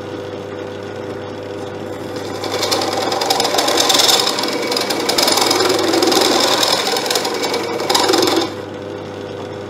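Bench drill press motor running steadily, with a step drill bit grinding into a metal bar to open up its holes to a sliding fit. The cutting gets louder from about two and a half seconds in and eases off near the end.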